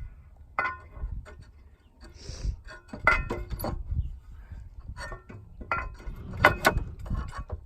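Irregular metallic clinks and knocks, a dozen or so, several with a short ring after them, as the metal parts of an automatic horse waterer are handled and fitted together.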